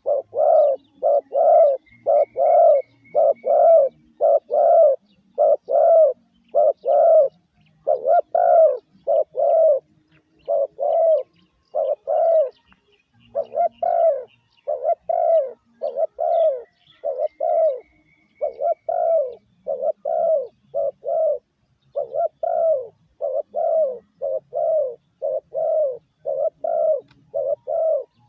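Spotted dove cooing: a long run of short, low coos, about two a second with brief pauses, the "gù" call used to lure wild doves. A faint high trill from a small bird comes in twice.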